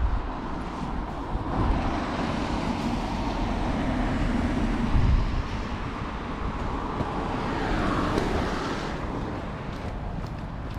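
A car passing along the road: its tyre and engine noise swells over several seconds, then drops in pitch and fades away near the end.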